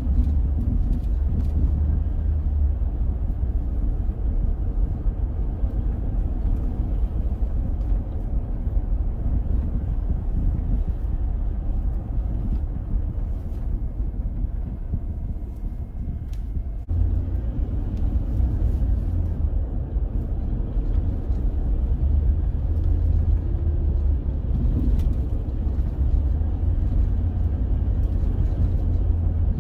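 Steady low rumble of road and engine noise heard from inside a moving car, easing briefly about two-thirds of the way through before returning.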